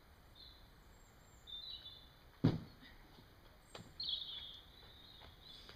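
A climber dropping off the boulder and landing with one heavy thud about two and a half seconds in. Birds sing on and off throughout.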